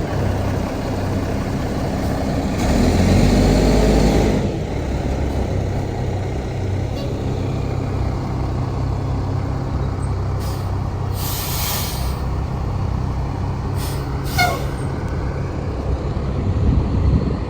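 A Mack Granite roll-off truck's diesel engine running steadily. About three seconds in there is a louder rushing stretch. Several short air hisses follow later on.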